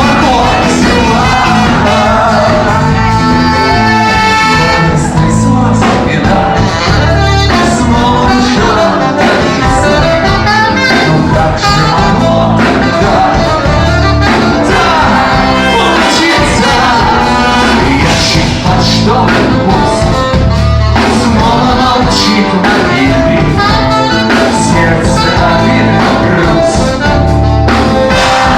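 A live rock band playing a song at full concert volume, with a vocalist singing over drums, bass and guitars.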